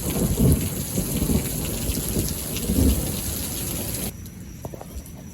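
Thunder rumbling low and rolling, fading over a few seconds, with steady rain hissing; the rain hiss cuts off suddenly about four seconds in, leaving scattered drips.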